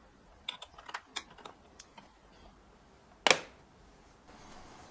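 Light plastic clicks and taps, then one sharp click a little over three seconds in, as a plastic controller screen module is fitted and plugged onto a laser engraver's control box.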